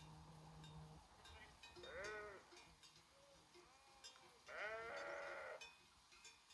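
Sheep bleating twice: a short bleat about two seconds in, then a longer, louder one near the end. Faint clinks of sheep bells come between the bleats.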